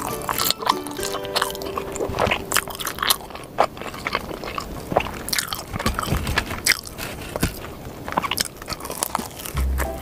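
Close-miked eating of thick-crust pepperoni pizza: repeated crunchy bites and chewing, with crackly clicks throughout, over background music.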